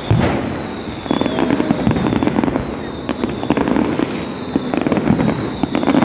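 Fireworks going off close by: a loud bang right at the start and another about a second in, over a continuous crackle of bursts and pops, with thin high whistles sliding down in pitch.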